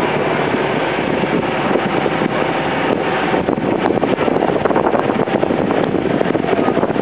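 Small passenger boat's engine running steadily under way, a constant loud drone.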